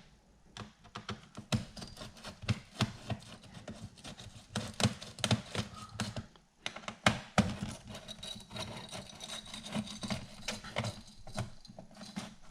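Phillips screwdriver backing out laptop heatsink screws, metal tip clicking and scraping in the screw heads in an irregular run of sharp clicks, with a short pause a little past the middle.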